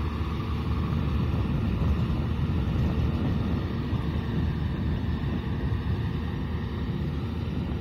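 Kubota M6040 SU tractor's diesel engine running steadily as it drives a rear rotary tiller through flooded paddy mud.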